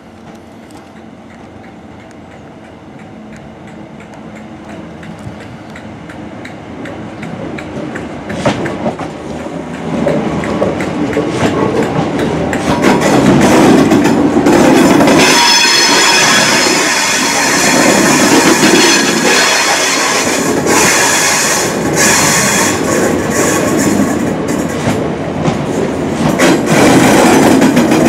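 A ScotRail Class 320 electric multiple unit approaches and grows steadily louder over about a dozen seconds, then runs close past with wheels clattering rhythmically over rail joints. A high-pitched squeal from the running gear comes in as the train passes.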